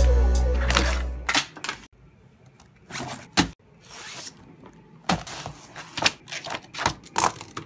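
Intro music fades out about a second in, followed by a string of short rustles, clicks and knocks from a hand rummaging in a backpack and handling a spiral-bound paper planner.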